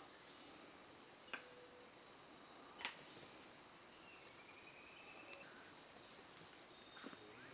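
Forest insect chirping, a steady run of short, evenly spaced high pulses. Two sharp clicks come in the first three seconds, and a faint whistled note comes midway.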